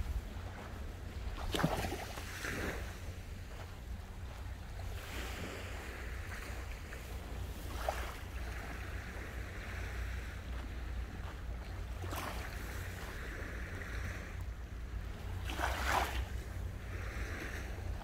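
Sea waves washing onto the beach in slow swells, over a steady low rumble of wind on the microphone, with a few sharp clicks along the way.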